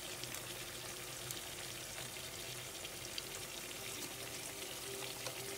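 Steady hiss of the couscous sauce cooking in the pot, with faint crinkling of a paper sachet as saffron colouring is shaken into it.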